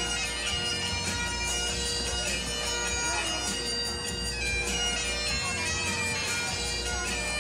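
Highland bagpipes playing a dance tune, the chanter melody moving over the steady drones.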